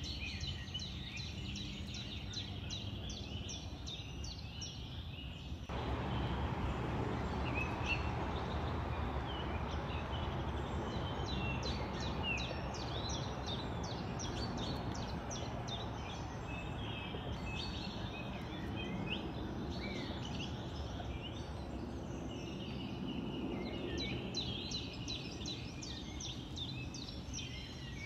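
Small songbirds chirping and twittering in quick runs of short notes, over a steady outdoor hiss of background noise that grows louder about six seconds in.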